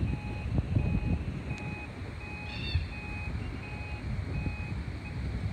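Garbage truck's reversing alarm beeping at an even pace, about three beeps every two seconds, over a low rumble; the beeping stops shortly before the end.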